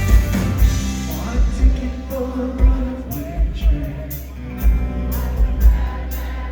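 Rock band playing live, with singing over a steady beat.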